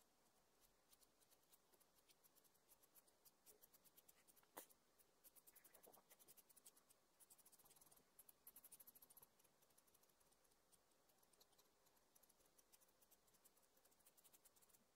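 Sanguine pencil scratching faintly on paper in quick, short strokes, with a single sharper tap about four and a half seconds in.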